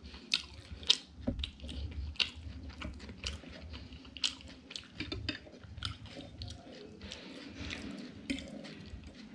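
A person chewing food close to the microphone, with frequent short, sharp mouth clicks and smacks.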